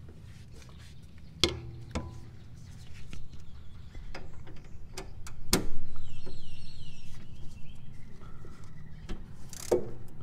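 Scattered metallic clicks and knocks of a breaker bar and 8 mm Allen socket working a tight power-steering line clamp bolt loose, the loudest knock about halfway through.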